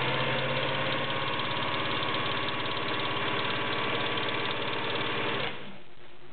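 Elna Super sewing machine running steadily at speed, sewing a built-in domino pattern stitch: motor hum with rapid needle strokes, stopping about five and a half seconds in.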